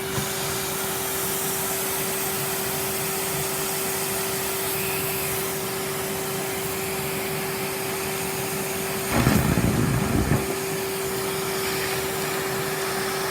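Vacuum cleaner running steadily with a constant hum. About nine seconds in, a sweet is sucked up the hose, giving a louder rattling rush for a second or so.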